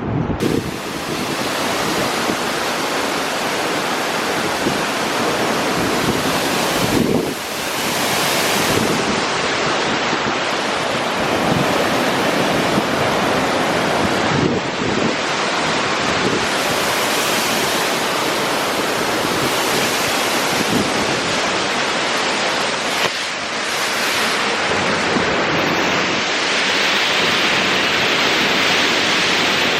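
Waterfall roaring: a loud, steady rush of falling water, dipping briefly twice.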